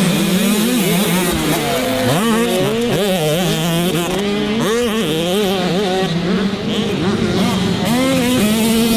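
Dirt bike engines revving up and down over and over as they accelerate and shift on a motocross track.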